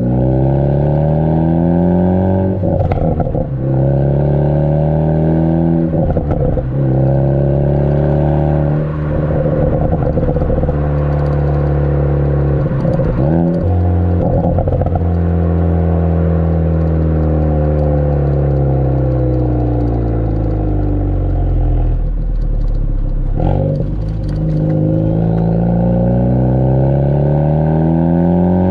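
Ford Focus ST's Borla cat-back exhaust, heard close at the tailpipe, as the turbocharged engine pulls through the gears. The pitch climbs over a few seconds and then drops at each shift, with one long slow fall in the middle as the car coasts. Short crackles and pops from a pops-and-crackles tune mark the breaks between pulls.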